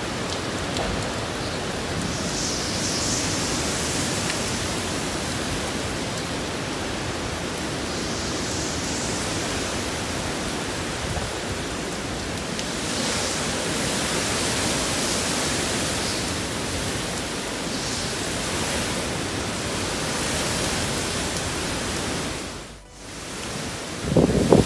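Hurricane wind blowing hard through palms, a continuous rushing noise that swells and eases with the gusts. Near the end it drops out for a moment, then a loud gust buffets the microphone.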